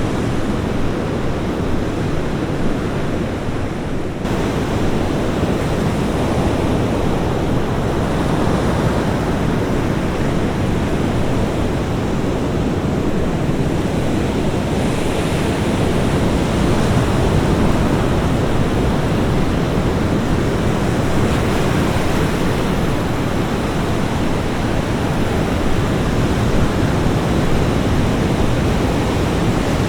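Ocean surf breaking on a beach: a continuous, dense wash of waves with gentle swells in loudness and no distinct single breakers.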